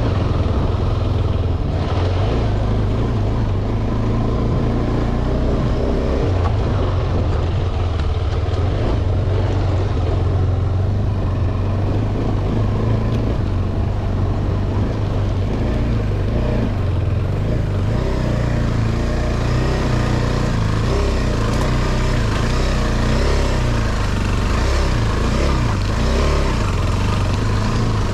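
KTM 390 Adventure's single-cylinder engine running at fairly steady, low revs with small rises and falls as the motorcycle is ridden.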